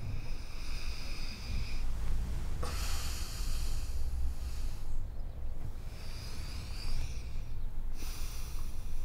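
A person breathing slowly and heavily, with long hissing breaths in and out about every two seconds over a low steady rumble.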